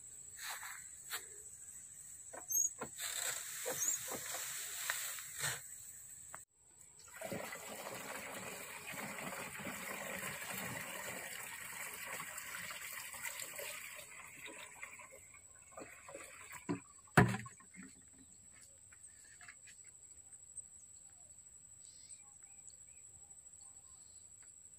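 Liquid pouring from a plastic jerrycan into a knapsack sprayer's tank, a steady pour lasting about seven seconds, followed by a sharp knock. Before it, a few seconds of rustling and clicks.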